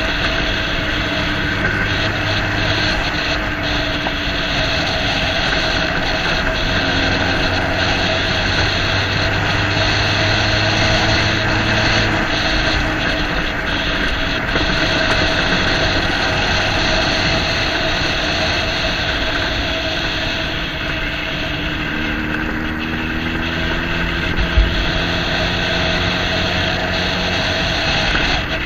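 A vehicle engine running steadily while under way, with road and wind noise, and one brief knock about 24 seconds in.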